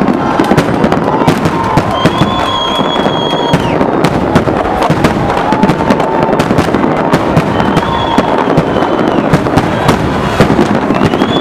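Fireworks display: a dense, continuous crackle of many small bangs, with several high whistling tones held for a second or two at a time.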